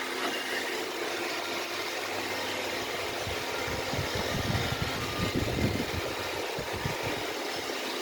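Vacuum cleaner running with a steady motor hum and hiss, with some irregular low rumbling in the middle.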